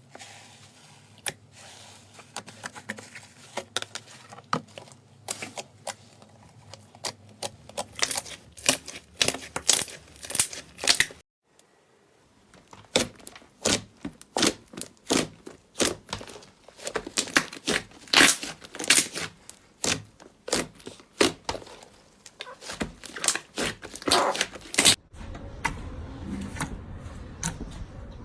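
Slime being pressed and pulled, giving rapid, sharp crackles and pops. The sound breaks off briefly about 11 seconds in, and near the end gives way to a softer, lower squishing.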